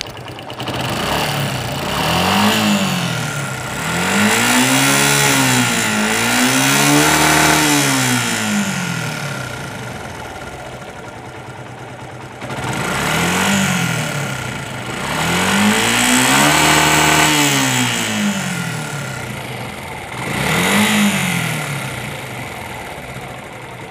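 Suzuki Gixxer motorcycle engine revved up and back down about six times, some blips held for a second or two, with a steady high whine underneath. It is the excessive engine noise the owner complains of, which the mechanic describes as a 'jhijh jhijh' buzz and puts down, about 80% sure, to a worn timing chain.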